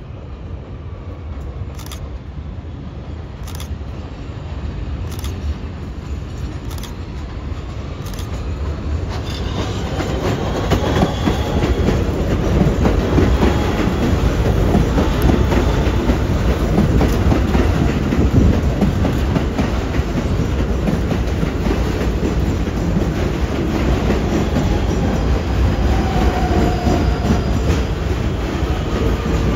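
R160 subway train approaching on elevated track and running close alongside. The wheels click over rail joints, and the rumble builds until about halfway through, then stays loud with brief faint wheel squeals.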